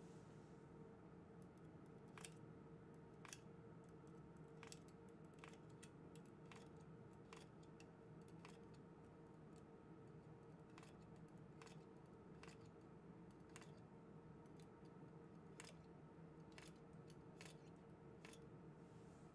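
Near silence: a steady low hum with about twenty faint, small clicks at irregular intervals.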